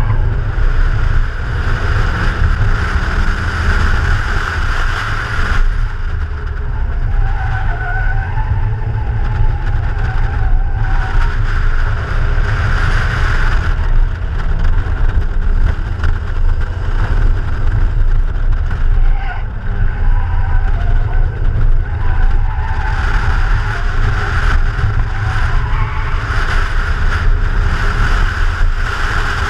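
BMW E36 Compact's 2.8-litre straight-six driven hard around a circuit, heard from a camera mounted outside the car, with a heavy low rumble from wind on the microphone. Tyres squeal through the corners at times, twice swelling for a few seconds.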